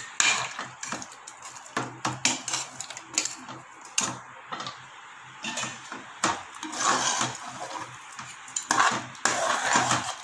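Steel slotted spoon stirring mashed rice and dal with jaggery syrup in an aluminium pressure cooker pot, clinking and scraping against the metal in many quick, irregular strokes.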